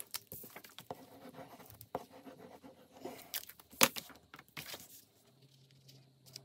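Paper and cardstock handled on a wooden tabletop: soft rustling and light taps, with a sharp knock a little before four seconds in as a small plastic liquid-glue bottle is set down. A faint low hum starts near the end.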